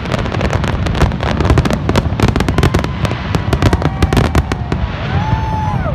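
Fireworks display: a dense, rapid run of crackling and popping from many shells bursting at once. Near the end, long pitched tones come in over the crackle.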